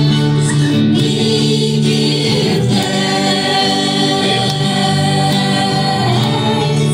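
Choir music: many voices singing long, held notes.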